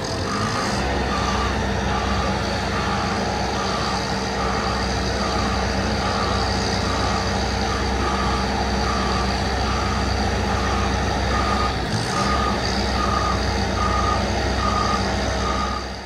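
Construction machinery's reversing-type motion alarm beeping at a steady pace, nearly two beeps a second. Heavy diesel engines run steadily underneath, dipping briefly about three-quarters of the way through.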